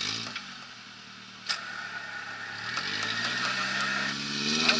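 Modified Suzuki Sidekick off-road truck's engine, running low at first, then revving up from a little past halfway and holding at higher revs as the truck works along the ditch. A single sharp click comes about a third of the way in.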